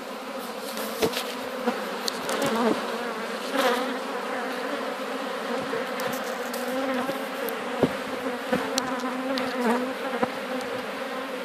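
Honeybee swarm buzzing steadily, with single bees flying close past the microphone in wavering tones. A few brief knocks stand out above the hum.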